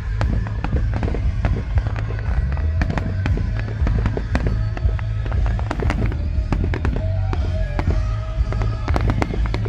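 Fireworks display: a rapid, irregular barrage of bangs and crackles over a constant deep rumble of booms.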